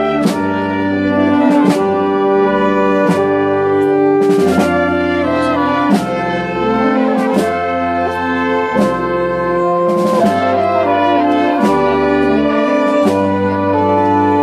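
Street brass and wind band (trumpets, saxophones and low brass) playing a slow piece in long held chords, with a few percussion crashes.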